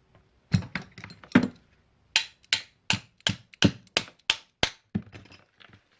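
Sharp, repeated tapping on a stuck carburettor float bowl to crack it free from the carb body: a few uneven knocks, then a steady run of about three strikes a second.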